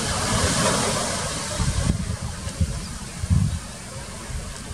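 Wind gusting on the microphone: irregular low bumps over a steady hiss, which drops about two seconds in.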